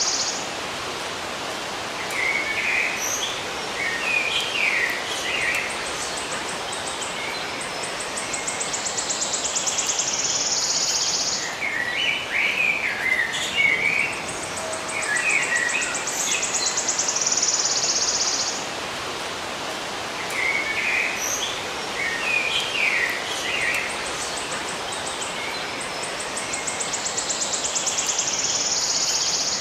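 Songbirds chirping in short bursts, alternating with a long, high, pulsing insect buzz that swells for several seconds and then cuts off, over a steady hiss. The same sequence comes round about every nine seconds, as in a looped recording.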